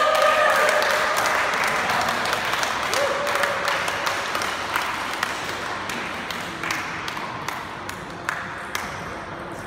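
Spectators applauding in a large sports hall at the end of a table tennis match, the clapping strongest at first and slowly dying away over several seconds.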